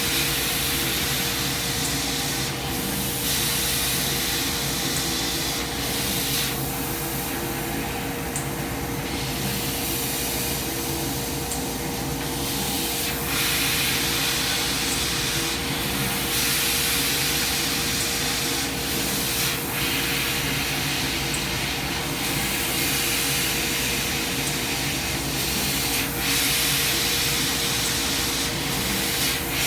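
Coherent Meta 1000-watt CNC laser cutter running: a steady hiss that drops back and comes on again every few seconds, over a constant machine hum.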